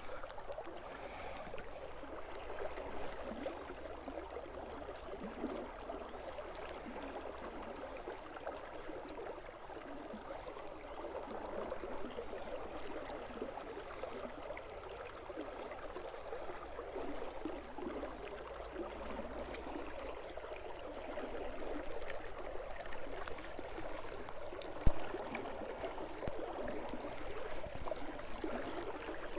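Steady wash of water from the river and falling rain, a fine crackling hiss with no pauses. There is a single sharp knock about 25 seconds in.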